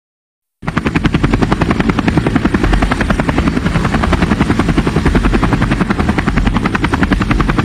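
A helicopter sound effect, a fast steady chopping pulse, starts abruptly about half a second in after silence, as the intro of a dance-music track.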